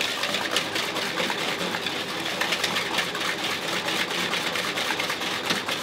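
Tupperware Speedy Chef hand-cranked whisk whipping egg whites, its gears and beaters making a rapid, steady clicking whir. A hand whisk beats egg yolks and sugar against a plastic mixing bowl at the same time.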